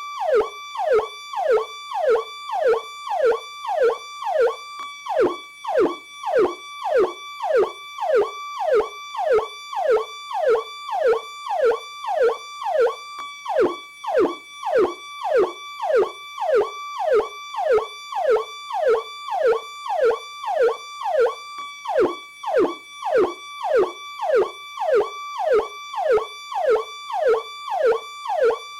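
Federal Signal PowerCall electronic police siren sounding its standard tone: a fast repeating cycle, about two a second, in which a high note holds and then drops sharply in pitch.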